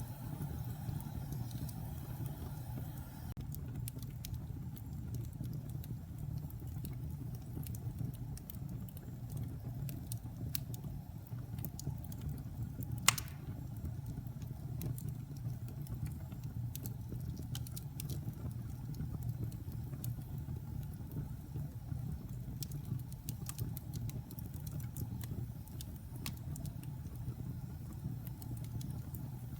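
Wood logs burning in a fireplace: a steady low rush of flames with scattered crackles, and one loud pop about thirteen seconds in.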